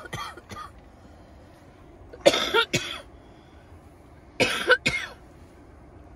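A person coughing in three short fits, each a quick double cough, about two seconds apart.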